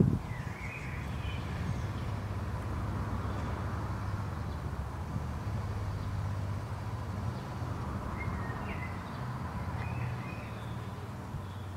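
Outdoor ambience: a steady low rumble with a few faint bird chirps, once near the start and a couple more near the end.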